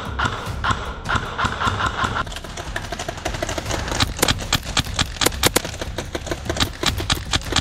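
Airsoft guns firing: sharp, irregular clicks and snaps of shots, coming thicker and faster from about halfway through, over a steady low rumble of handling noise.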